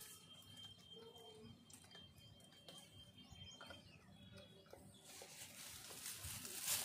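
Quiet outdoor ambience with faint bird chirps and a thin steady high tone, then a soft rustling noise that grows over the last couple of seconds.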